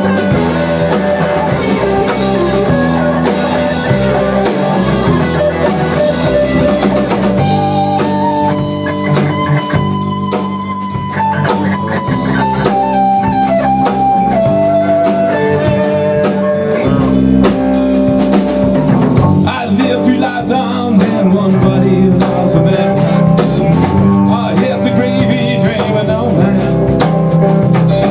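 Rock band playing live: electric guitars, electric bass and a drum kit, with a lead guitar line of held, sliding notes in the middle; the band gets louder in the second half.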